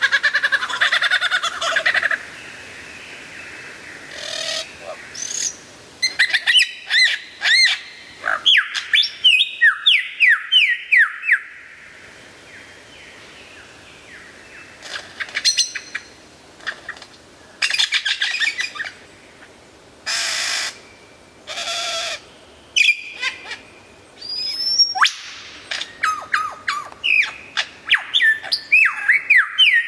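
Lyrebird singing a loud, varied song: runs of quick, repeated descending whistled notes, broken up by a few short harsh, noisy bursts.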